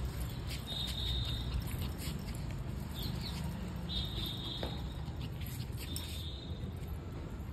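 Shih Tzu's paws pattering on a concrete floor as it runs, over a steady low rumble. A high chirping call sounds three times in the background.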